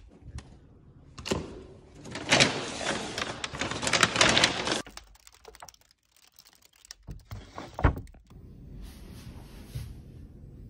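A door handle clunks, then plastic grocery bags crinkle and rustle in a cardboard delivery box for about three seconds, followed by a couple of sharp knocks.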